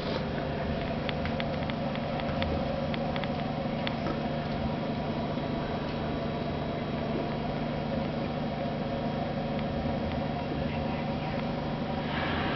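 Steady hum of an aquarium's pump and filter running, with a bed of bubbling noise from the air stream and a run of faint clicks in the first few seconds.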